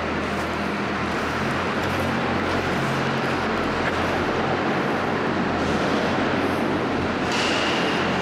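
A large engine running steadily, with a loud, even noise over a low hum; a thin high whine joins about seven seconds in.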